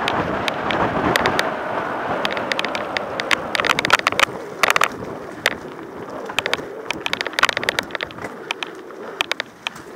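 Mountain bike rolling over a dirt and gravel trail: a steady rush of tyre and wind noise with frequent sharp clicks and rattles as the bike jolts over bumps. The rush eases toward the end.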